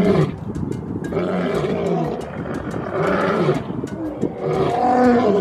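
Lion roaring: a series of deep, drawn-out roars, each rising and falling in pitch, about four in a row.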